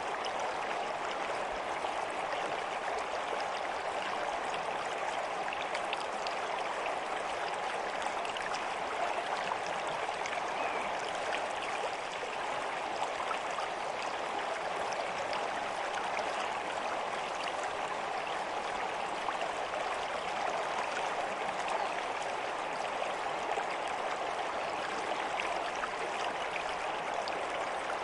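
Running water flowing steadily and evenly, a continuous stream sound with small splashing ticks through it.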